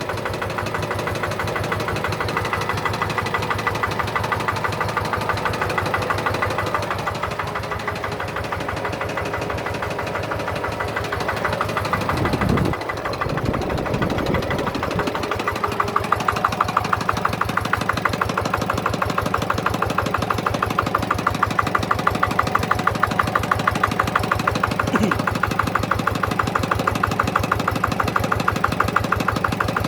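Kubota RD65 DI-2S single-cylinder diesel engine running steadily with an even knocking beat on test. A little under halfway through, its pitch briefly shifts and it then runs a little louder, with sharper beats.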